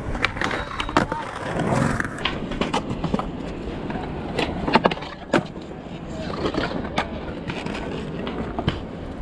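Skateboard wheels rolling on concrete, with repeated sharp clacks of boards hitting the ground.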